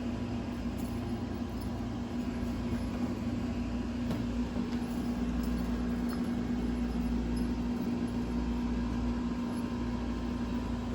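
Steady low mechanical hum with one held tone over a faint rumble.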